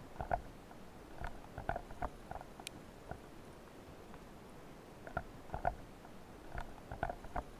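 Underwater clicks and knocks coming in four short clusters a second or two apart, over a faint steady hiss, with one sharper high click in between.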